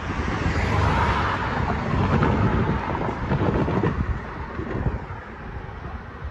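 Road traffic driving past over the crossing, a low rumbling noise that eases off toward the end, with wind buffeting the microphone.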